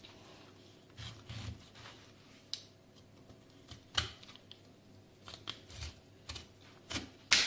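A knife cutting raw jackfruit: a handful of irregular short taps and cuts, the loudest near the end.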